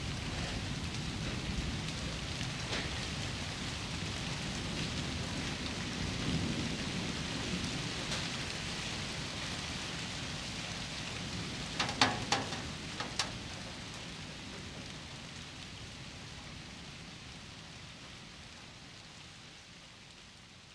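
Steady rushing noise with a quick cluster of four sharp clicks or knocks about twelve seconds in, then slowly fading out near the end.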